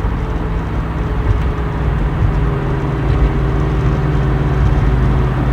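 Cabin sound of a 1969 Mustang's 428 V8 and drivetrain at a steady cruise, with a constant low engine hum and road noise. It is running clean here, without the intermittent howl suspected to come from the rear end or transmission.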